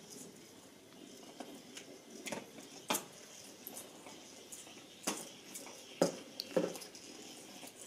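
Westminster Weazel Ball, a motorized ball with a plush weasel attached, rolling over carpet, with several short knocks and clatters as it bumps along. The loudest come about three seconds and six seconds in.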